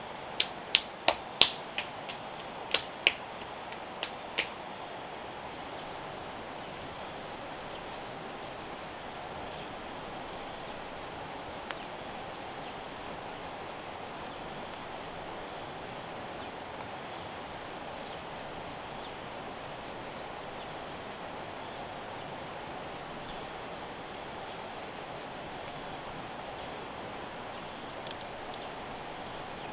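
Steady, high-pitched chirring of insects, with a quick run of about nine sharp knocks in the first few seconds and a couple of faint clicks later on.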